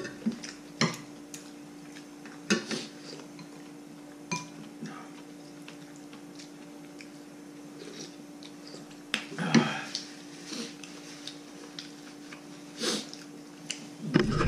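Metal spoon and fork clinking and scraping against ceramic plates and bowls during a meal, in scattered knocks, with a faint steady hum underneath.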